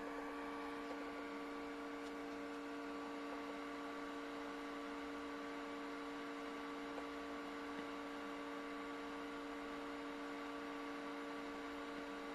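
Steady electrical hum, several held tones over a faint hiss, unchanging throughout.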